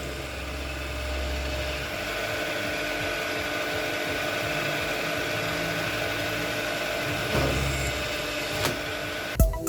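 A workshop machine running steadily, with a constant hum. Music with sharp beats cuts in just before the end.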